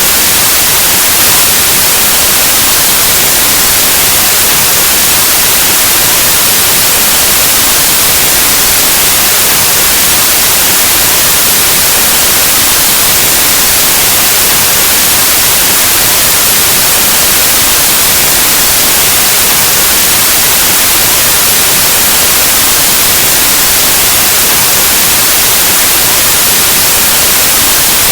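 Steady, loud white noise: an even hiss like the static of an analog television or radio, unchanging throughout.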